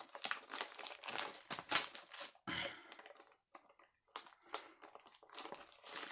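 A small cardboard mystery-mini box being cut open with a knife and handled: irregular scrapes, clicks and crinkling of packaging, with a short lull about three and a half seconds in.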